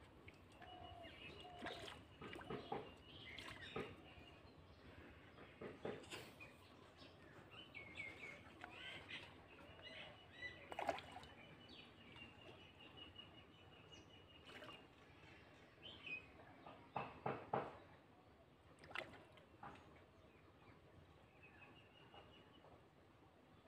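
Small birds chirping and trilling in short repeated runs over faint outdoor ambience, with a few brief sharp sounds scattered through, the loudest of them about two-thirds of the way in.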